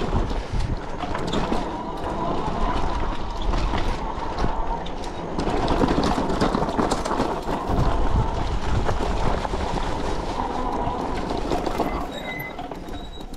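Fat-tire e-bike riding over a rocky trail: a continuous rumble with clattering and rattling from the tires and frame on the rocks, easing off near the end.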